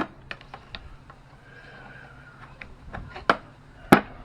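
Small metal clicks and knocks from tools and parts as a Wheel Horse garden tractor's steering box is worked apart to get a part out. There is a faint scrape about halfway through and two sharp knocks near the end.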